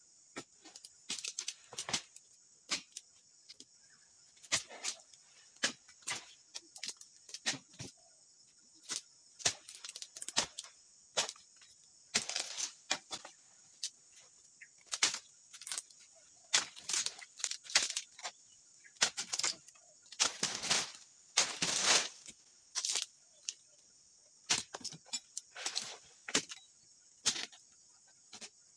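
A dodos, a long-handled chisel, is driven into the bases of oil palm fronds again and again, making irregular sharp chops and cracks. A few of the strokes are longer and rasping as a frond is cut free. A steady high insect drone runs behind.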